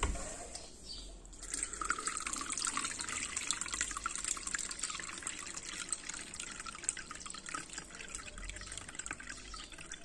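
Home-made sea moss drink poured from a rice cooker's metal inner pot through a dish-towel strainer into a container: a steady patter and trickle of liquid that starts about a second and a half in.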